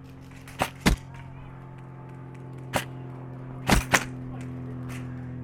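Five sharp single shots from an airsoft electric rifle, a pair near the start, one in the middle and a quick pair a little later, over a steady background music drone.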